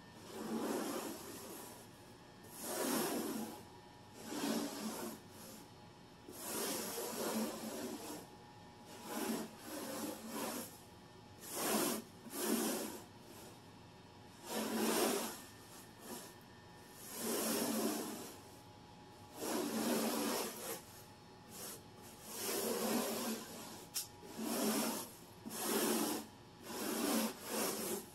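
Broom bristles brushing fine dirt across a low-pile rug in repeated scratchy strokes, roughly one every second and a half.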